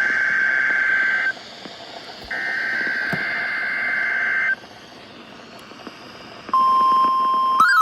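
NOAA Weather Radio Required Weekly Test signalling on a radio receiver: two harsh warbling SAME digital header bursts of about two seconds each over static hiss, then from about 6.5 s in the steady 1050 Hz warning alarm tone.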